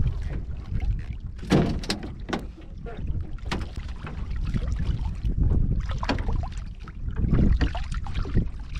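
Wind buffeting the microphone and water slapping against a small wooden boat, with scattered sharp knocks and clicks on the boat.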